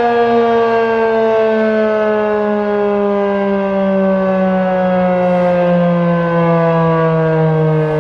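Federal Signal 2001-SRN tornado siren winding down after its alert: its two-tone chord slides slowly and steadily lower in pitch as the rotors coast to a stop.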